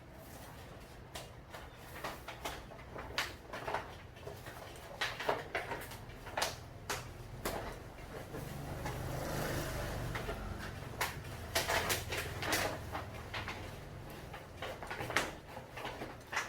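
Irregular clicks and light knocks of hands and tools working on door hardware, with a low rushing noise that swells in the middle.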